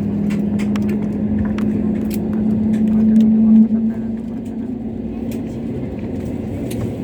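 Airliner cabin noise before take-off: a steady machinery hum with air noise. The hum swells a little, then drops off sharply about three and a half seconds in. Scattered small clicks and knocks sound throughout.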